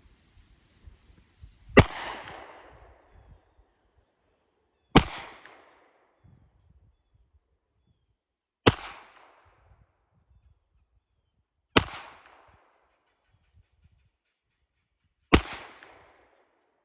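Five single shots from a Kimber Micro 9 9mm pistol, fired slowly about three to four seconds apart, each followed by a short echo. Insects buzz in the background until the first shot.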